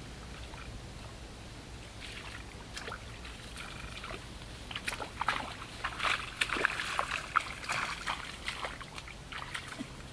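Shallow floodwater splashing and sloshing in irregular bursts, starting about two seconds in and busiest in the middle.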